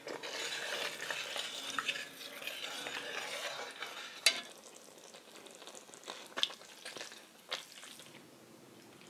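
Metal spoon stirring a thick tomato meat sauce cooking in a pot, a steady wet scraping and sizzling for about four seconds. Then a sharp click and a few scattered clicks.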